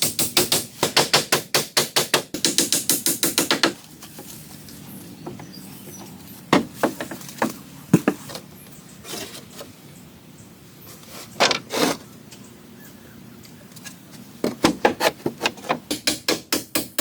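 Quick runs of sharp tool strikes on wood, about five a second, stopping a little under four seconds in; a few single knocks follow in the quieter middle, and the rapid striking starts again for the last couple of seconds.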